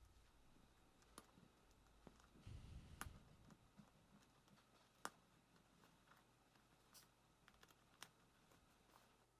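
Faint, scattered sharp clicks of a seam ripper cutting through denim stitches, about five or six clearly, with a soft low rumble of handling about a third of the way in.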